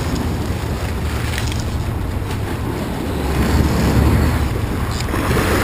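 Boat engines running steadily with wind on the microphone and water washing past the hull; the low rumble swells about four seconds in.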